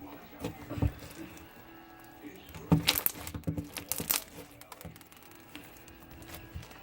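Bead-filled slime being stretched and squished by hand: sticky crackles and clicks, with a cluster of sharper cracks about three to four seconds in.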